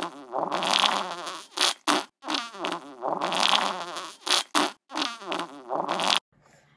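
A looped fart sound effect: a run of short fart noises that repeats about every two and a half seconds, three times over, and stops shortly before the end.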